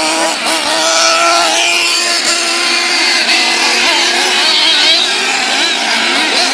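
Engines of several racing vehicles running at once, their pitches wavering and gliding up and down as they speed up and slow down.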